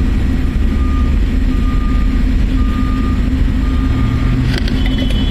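A vehicle engine running with a steady low rumble while an electronic warning beeper sounds about once a second.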